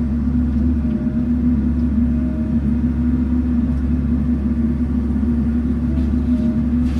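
An engine running with a steady, even drone that holds constant.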